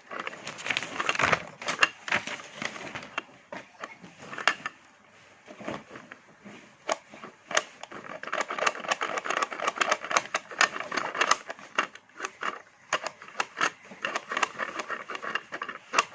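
Plastic toy blender clicking and rattling in fast irregular runs as doll food is mixed in it, easing off for a couple of seconds partway through.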